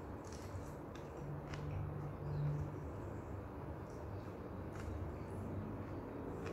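A person eating fried flat rice noodles: chewing and mouth noises, with a few light clicks of a fork and spoon against the plate, over a steady low hum.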